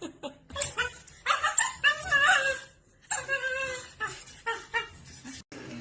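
A dog vocalizing: a run of short pitched cries whose pitch wavers up and down, with a brief pause about three seconds in.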